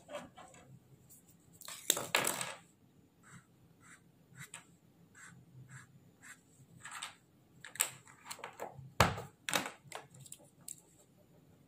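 Pens handled at a desk: a few sharp clicks as the ballpoint pen is set down and the highlighter taken up, then a run of short felt-tip highlighter strokes scratching on paper, then louder clicks and knocks about nine seconds in as the highlighter is put down.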